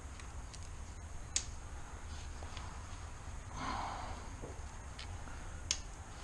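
A person breathing, with a louder breath about four seconds in, and two sharp light clicks, one after about a second and a half and one near the end.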